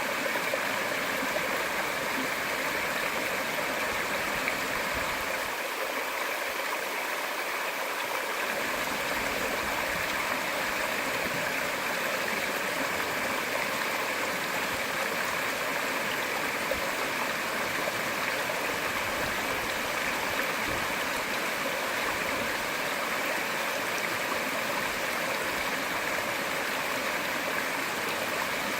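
Waterfall splashing steadily as the creek falls over rock.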